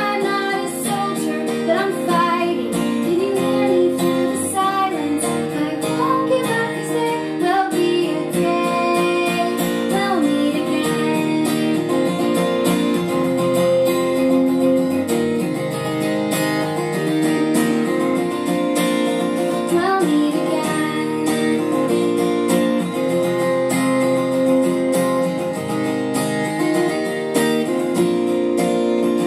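A woman singing over a strummed acoustic guitar, with stretches of guitar alone. The recorded song is played back through Celestion Ditton 15 loudspeakers driven by an 813 valve amplifier.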